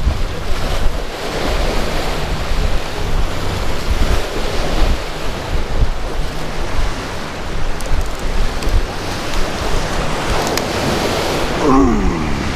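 Surf and rushing water, with wind buffeting the microphone in low gusty rumbles. A brief wavering pitched sound comes in near the end.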